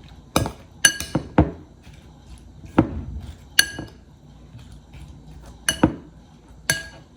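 A utensil clinking and tapping against a bowl while a chopped salad filling is mixed: irregular strikes, several of them ringing briefly.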